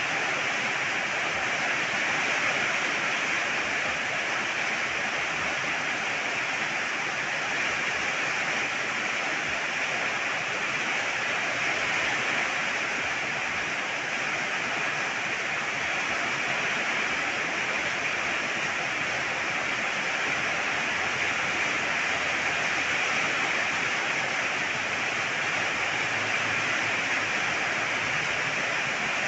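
Steady pouring rain, an even hiss with no single drops or breaks standing out.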